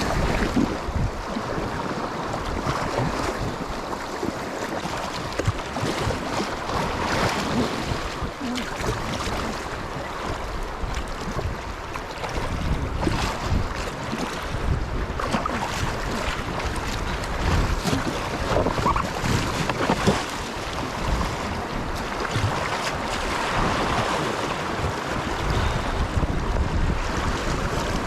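Rushing stream water mixed with wind, the wind buffeting the microphone in uneven gusts.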